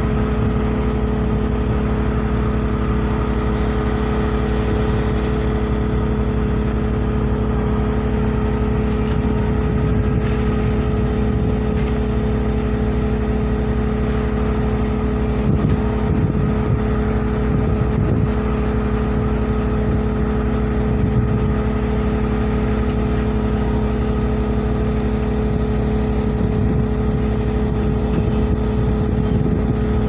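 Caterpillar wheeled excavator's diesel engine running at a steady speed as the machine digs and swings, a constant drone that never changes in level.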